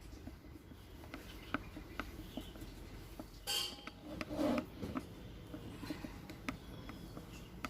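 A spoon stirring a thick paste of honey and ground spices in a small bowl: faint scattered clicks and taps against the bowl, with a few louder scrapes about halfway through.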